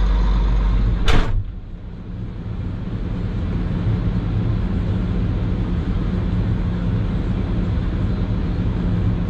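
Excavator cab door slamming shut about a second in, followed by the machine's diesel engine running steadily as heard from inside the closed cab, its hum slowly growing louder.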